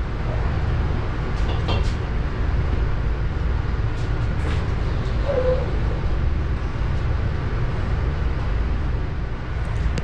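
A steady low machine hum, with a few light clicks and knocks as a refrigerator's cabinet and door are handled.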